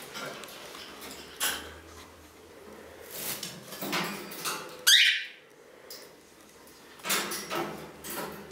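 Green-naped lorikeet moving about a wire cage perch, with scattered light clicks and rattles. About five seconds in comes one short, shrill call that rises and falls in pitch, the loudest sound here.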